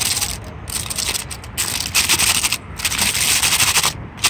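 Aluminium foil crinkling as it is peeled open from around a hot calzone, loud crackly rustling that comes and goes in stretches.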